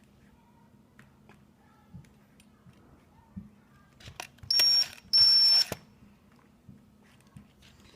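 Hand-held power drill run in two short bursts of about half a second each, a high steady whine over a grinding noise, drilling into a TI-30XS calculator's plastic case. Light clicks and handling taps come in between.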